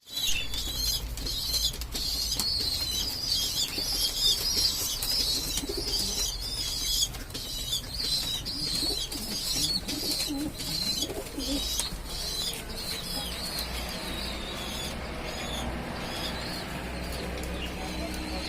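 Pigeons moving about with wing flaps and low cooing, the coos clearest about halfway through. Busy high chirping runs over them and fades in the second half, all over a low wind rumble.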